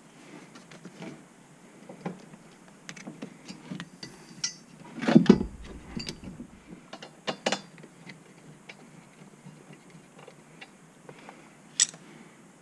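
Irregular metallic clicks and clunks of bolts being fitted and hand-tightened into a harness bar's side mount, loudest in a cluster of knocks about five seconds in, with a single sharp click near the end.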